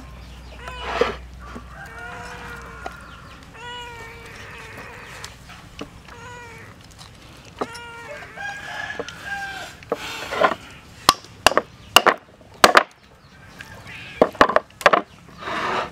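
Cleaver chopping through a fish onto a wooden chopping block: a quick series of sharp knocks in the second half. Before the chopping, a few short animal calls rise and fall in pitch.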